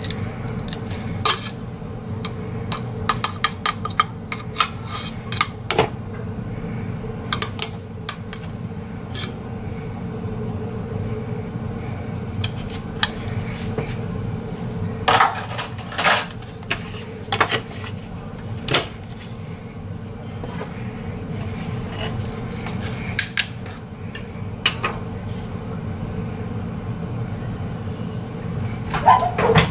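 A metal spoon clinking and scraping against a baking powder can and a bowl as baking powder is scooped and measured: a scattered series of sharp clicks and taps over a steady low hum, with a louder knock near the end.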